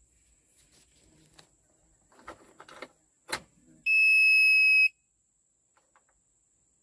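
Ignition key turned in a Komatsu PC200-7 excavator's cab: a sharp click, then the cab warning buzzer sounds one steady, high beep for about a second. Only a few faint clicks follow and the engine does not crank, because the starter motor only clicks instead of turning.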